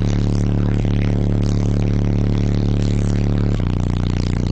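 Car-audio subwoofers playing a loud, steady low bass note, dropping to a lower note about three and a half seconds in, with a buzzing, rattling haze above the bass.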